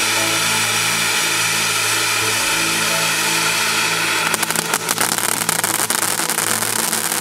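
Starget Neon Parrot cone firework fountain spraying sparks with a steady hiss. About four seconds in, a dense crackling starts as crackling stars burst out of the spray.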